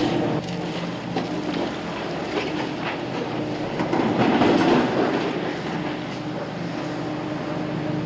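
A heavy machine's engine running steadily with mechanical clatter, growing louder for a moment about four seconds in.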